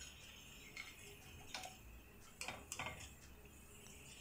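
Faint sizzle of palak pakoras deep-frying in hot oil in a metal kadhai, with a few light clicks of a wire-mesh skimmer against the pan as fried pakoras are lifted out, most of them about two and a half seconds in.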